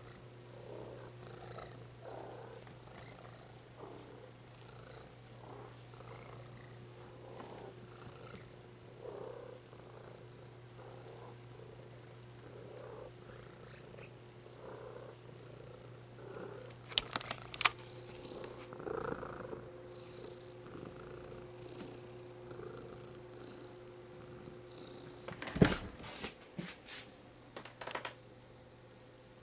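Domestic cat purring close to the microphone, swelling and fading with its breaths about once a second, over a steady low hum. There are a few clicks about two-thirds of the way through and a sharp knock near the end.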